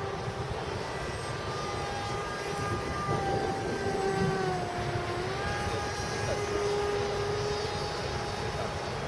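Radio-controlled model jet flying overhead, its motor giving a steady whine that sags in pitch about five seconds in and then climbs back up as the throttle changes.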